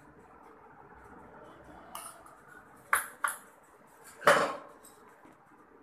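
Metal spoon clinking against a stainless steel bowl while spice powder is spooned in: four light clinks, the loudest one about four seconds in, with a short ring.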